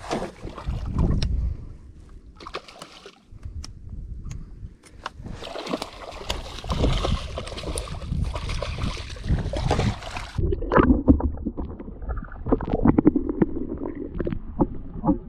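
Water splashing and sloshing around a small fishing boat, with scattered knocks and handling noise, over a constant low rumble of wind on the microphone. A denser burst of splashing noise fills the middle of the stretch, from about five to ten seconds in.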